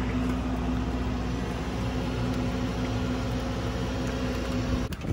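E60 excavator's engine running steadily with a constant hum, cutting off suddenly near the end.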